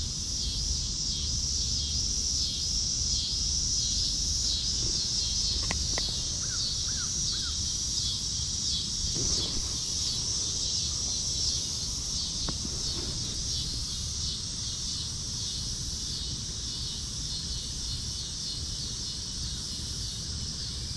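Steady, high-pitched chorus of summer insects such as crickets droning without a break. A bird gives three short rising chirps about six seconds in.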